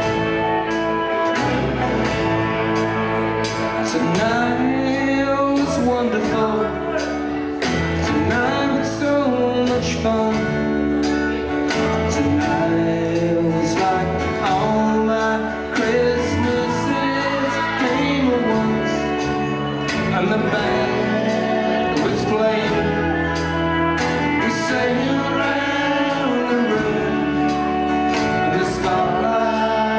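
Live folk band playing a song: a man sings lead over acoustic guitar, fiddle, mandolin and bass guitar, with a steady beat.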